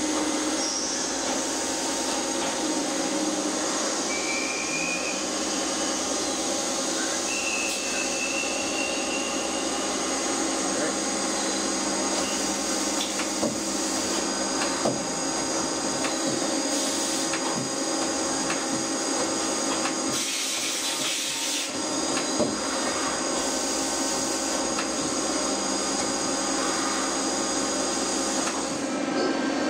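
Mazak QT-250 CNC lathe running: a steady machine hum with constant whining tones, a few light clicks as the tool turret moves, and a short hiss a little past two-thirds through.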